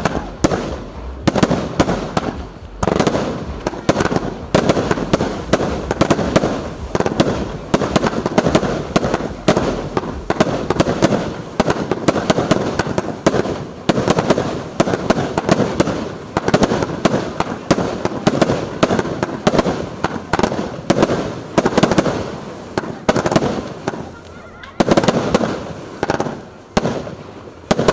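Fireworks finale: a rapid barrage of bangs and crackles, many reports a second with no break, thinning briefly near the end before a last dense flurry that then dies away.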